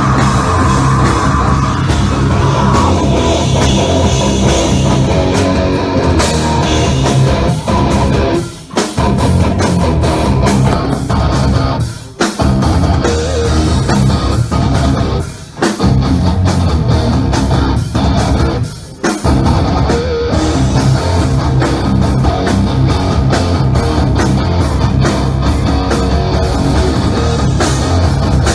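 A heavy rock band playing live: drop-tuned electric guitars, bass and drum kit playing a heavy riff. The band stops dead for a moment four times, then comes back in.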